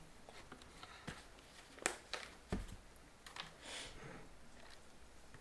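A few light knocks and clicks of a cup, saucer and kitchen scale being set down and moved on a table, with a brief sliding rustle about two-thirds of the way in.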